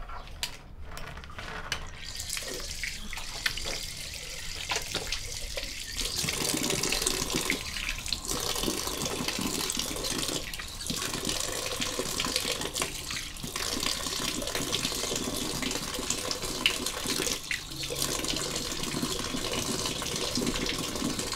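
Running water, a steady rushing hiss that starts about two seconds in and grows louder about six seconds in.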